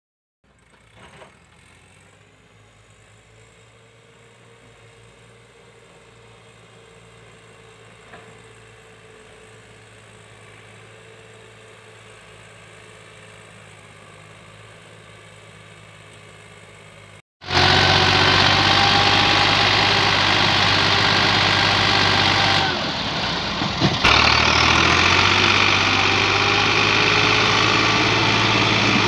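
Massey Ferguson tractor's diesel engine labouring under a heavily loaded trolley, heavy enough to lift the tractor's front wheels. It is faint at first and grows slowly, then after a cut about 17 seconds in it is loud and close. The engine note dips briefly, with a sharp knock, near 24 seconds.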